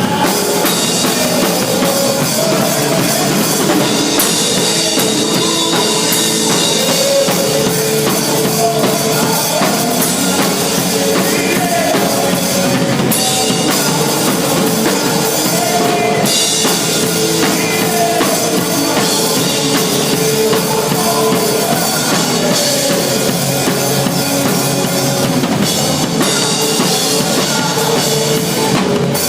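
Loud recorded music with a steady drum-kit beat in a rock style, thin in the deep bass.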